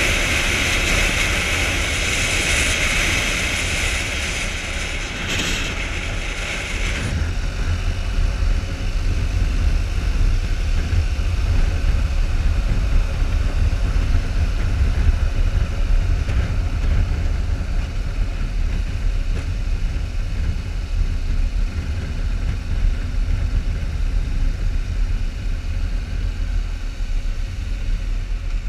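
BMW motorcycle ridden at highway speed: wind rushing over the microphone on top of the engine and road rumble. The wind hiss drops abruptly about seven seconds in, leaving a steadier low rumble of engine and road.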